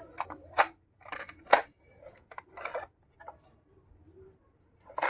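Small plastic toy kitchen pieces being handled and set down: a few sharp clicks and taps, the loudest about a second and a half in and another at the end, with a brief scrape in between.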